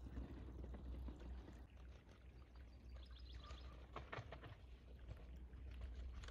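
Faint low rumble, like wind on the microphone, with a few short clicks and rattles about four seconds in.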